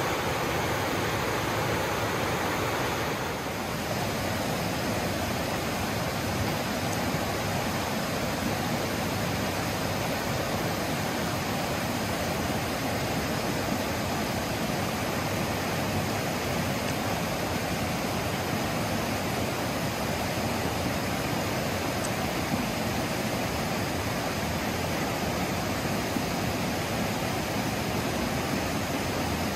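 Water rushing steadily, with a slight dip in level about three seconds in.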